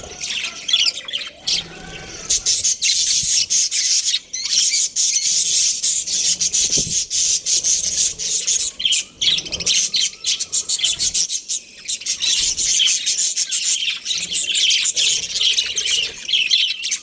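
Budgerigars chattering, a dense run of rapid high chirps and squawks that thickens about two seconds in and keeps going.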